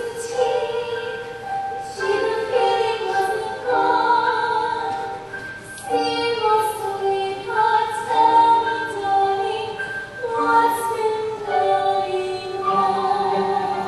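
A woman singing a slow song, holding long notes, with music behind her.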